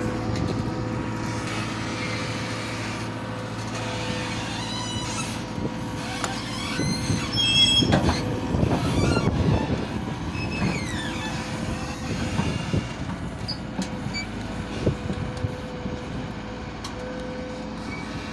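Caterpillar 428E backhoe loader's diesel engine running steadily while the machine works, with high squeals and clanks of metal, most of them between about four and eleven seconds in.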